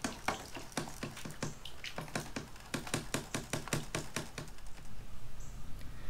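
Light clicks and knocks of plastic parts as the drain pan of a split air conditioner's indoor unit is handled and taken down, with a fast run of clicks about halfway through.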